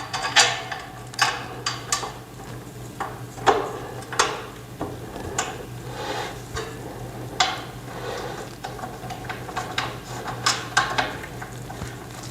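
Irregular metal clinks and knocks as the TV stand's steel frame parts and bolts are handled and fitted, over a steady low hum.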